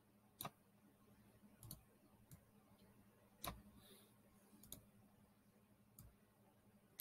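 Faint computer mouse clicks, about six spread irregularly over several seconds, above a low steady hum.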